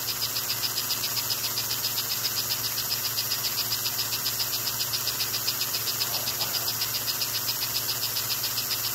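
American Flyer 287 model steam locomotive running under power: a steady, rapid mechanical ticking, about six to seven a second, over a low electrical hum.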